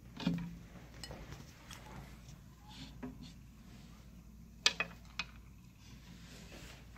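A few sharp clicks and light knocks of hard objects. A duller knock comes about a third of a second in, and the two sharpest clicks come a little past the middle, about half a second apart.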